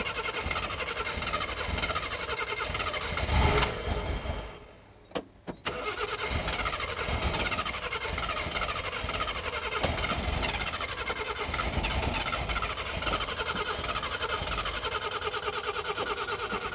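Subaru Sambar truck's engine being cranked on the starter without running on, in two long attempts. The first swells briefly before it stops about four seconds in; after a pause with a couple of clicks, the second attempt runs on. The owner suspects the distributor with its built-in crank sensor, or possibly the injection.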